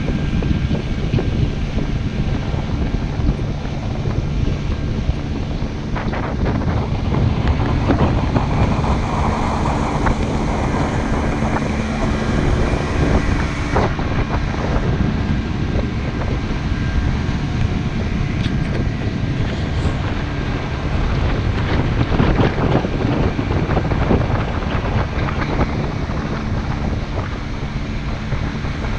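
Small open metal motorboat under way at speed: its motor drones steadily while wind buffets the microphone and water rushes along the hull, with occasional knocks as the hull meets small waves.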